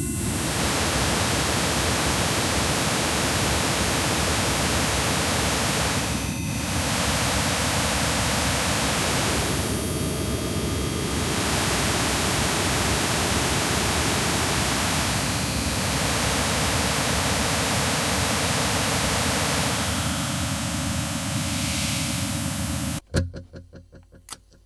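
Noise music: a loud wall of static-like hiss spread across the whole range, its colour shifting every few seconds as bands of it drop out and return. It cuts off abruptly near the end, leaving a few sharp clicks.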